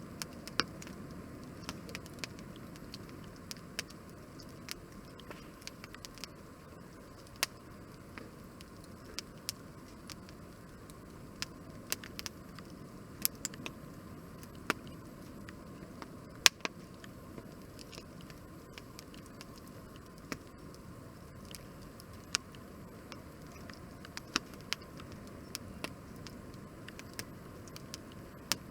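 Wood fire burning in a three-sided fire grill, crackling with sharp, irregular pops over a low steady rush, one or two a second, with a few much louder snaps, the loudest about sixteen seconds in.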